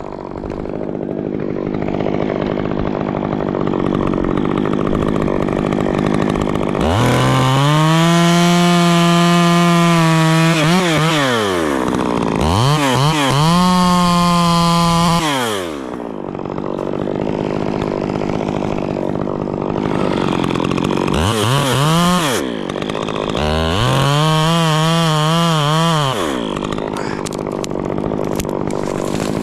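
Chainsaw cutting through white fir to take the top of the tree: the engine revs up to full throttle four times, holding each cut for a few seconds before dropping back to a low run between cuts.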